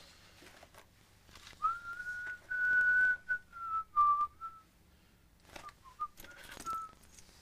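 A man whistling a short tune through pursed lips: a held note that steps down over about three seconds, then, after a short pause, a few more brief notes, with light clicks between.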